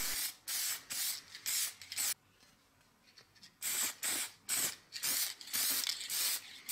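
Aerosol can of clear-coat lacquer spraying in short hissing bursts, about three a second, with a pause of about a second and a half about two seconds in: a coat of clear lacquer going onto a painted steel axe head.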